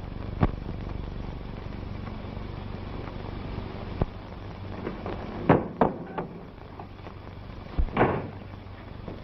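A door knocking and shutting, with a few sharp knocks and a thud spread through, over the steady hum and hiss of a 1930s film soundtrack.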